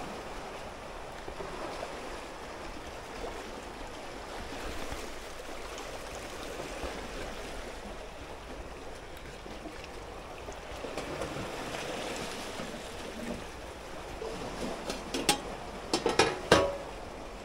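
Small sea waves washing against the shore, a steady wash that swells about two-thirds of the way through. Near the end come a few sharp clicks and knocks.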